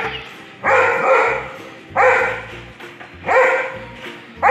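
A dog barking at an even pace, about one bark every second and a quarter, each bark starting sharply and trailing off. Background music with a steady low beat plays under it.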